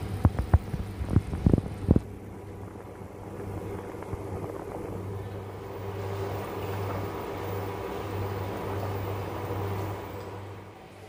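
A few sharp knocks in the first two seconds, then the steady rumbling bubble of a pot of water at a rolling boil with flat rice noodles (kwetiau) cooking in it, over a low steady hum.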